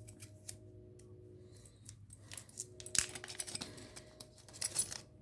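Steel tension wrenches (Sparrows heavy bars) being handled, giving light metallic clicks and clinks. The loudest come about three seconds in and again near the end.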